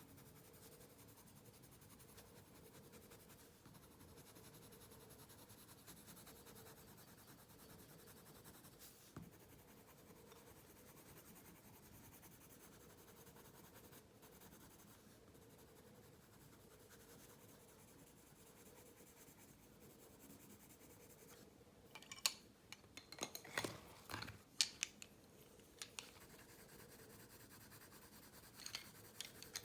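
Faint, steady pencil scratching on paper during sketching. About three quarters of the way through comes a quick run of sharp taps and clicks, with a few more near the end.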